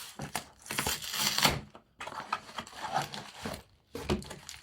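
A parcel's packaging being crinkled and torn open by hand, in three uneven stretches of rustling.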